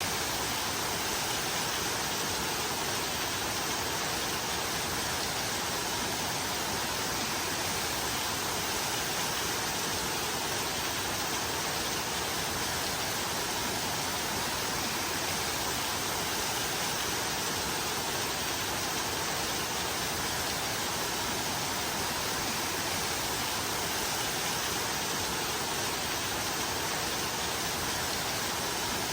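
Steady rain sound: an even, unbroken hiss that does not change.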